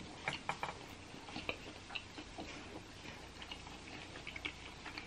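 Close-miked chewing of a crispy birria quesadilla: irregular soft crunches and wet mouth clicks, several a second.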